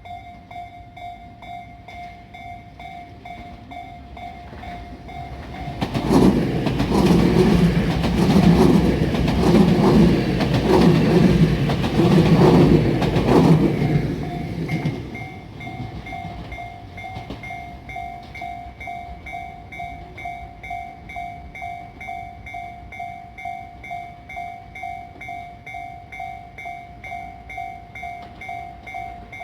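Level-crossing warning bell ringing about twice a second throughout. A Tobu Skytree Line train passes the crossing from about six seconds in, loud enough to drown the bell, and fades by about fifteen seconds.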